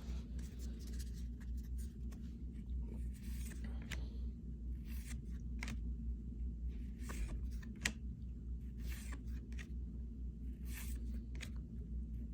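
Baseball trading cards being flipped through one by one: short swishes of card stock sliding over card and light clicks, irregularly about once a second, over a steady low hum.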